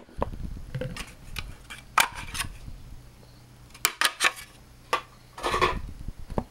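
Handling noise: scattered sharp clicks and knocks of hard objects being moved, with a longer clattering rustle a little after five seconds in.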